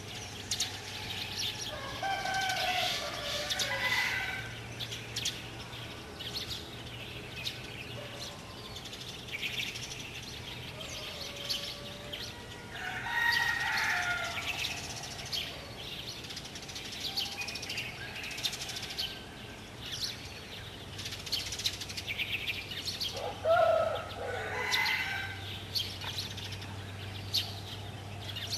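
Birds calling outdoors: small birds chirping throughout, with three louder, longer calls that bend in pitch, about ten seconds apart. A faint steady low hum underneath.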